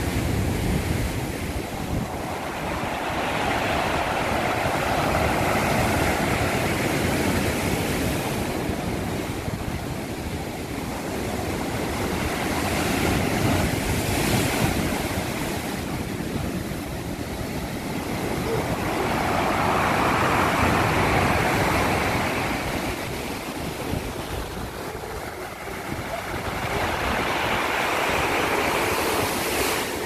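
Rough storm surf: waves breaking and washing up the beach in a continuous rush of water that swells and eases about every seven or eight seconds.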